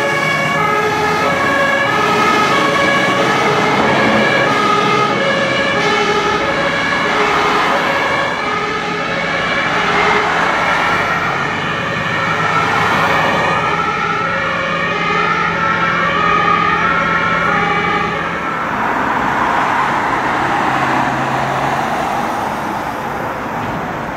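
German two-tone fire service sirens (Martinshorn) sounding on emergency vehicles, their high and low notes alternating in a steady rhythm. In the middle more than one siren sounds at once, out of step. About three-quarters of the way through the sirens fade out, leaving steady road traffic noise.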